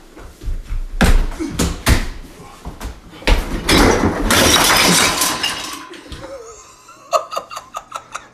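Banging and crashing in a kitchen: a couple of sharp slams, then a long clattering crash. Near the end comes a quick run of glassy clinks as a refrigerator door is yanked open and the bottles on its shelves rattle.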